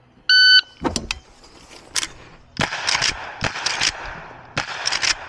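Electronic shot-timer start beep lasting about half a second, then .38 Special shots from a Henry Big Boy X lever-action rifle: the first comes about half a second after the beep, and a quick string of shots follows from about two and a half seconds on.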